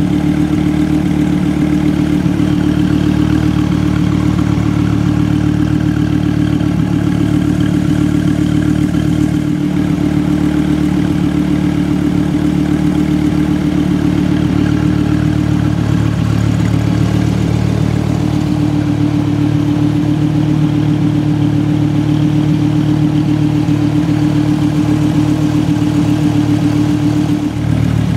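2014 SRT Viper GTS's 8.4-litre V10 idling steadily, its note shifting slightly a couple of times.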